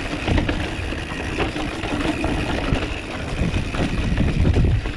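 Wind buffeting the microphone and the rattling, knocking and tyre rumble of a mountain bike ridden fast over rough ground.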